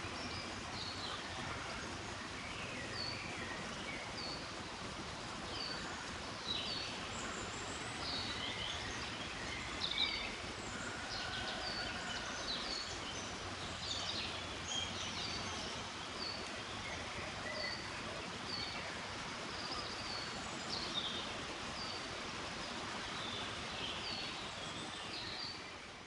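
Countryside ambience: a steady hiss of wind with small birds chirping and calling over it, one repeating a short high chirp about every second. It fades out at the end.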